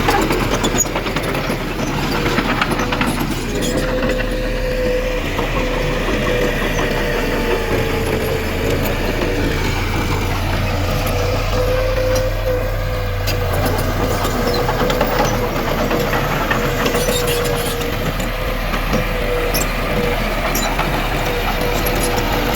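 Heavy earthmoving machine's diesel engine running steadily, with a steady whine and a few sharp clicks over its low rumble.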